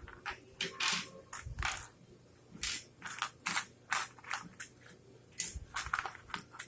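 Small plastic Lego pieces clicking and clattering against each other and the tabletop as they are sorted out by hand, in a string of irregular sharp clicks.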